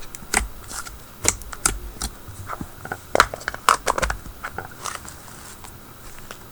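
Thick glossy slime being squeezed and stretched by hand, giving off irregular sharp clicks and bubble pops that thin out after about five seconds.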